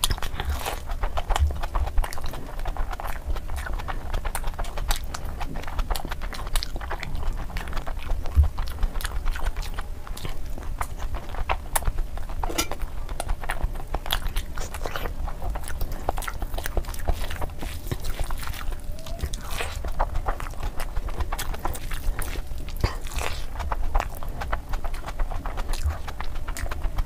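Close-miked chewing of mutton curry and fried rice eaten by hand: a steady stream of wet mouth clicks, with a few low thumps.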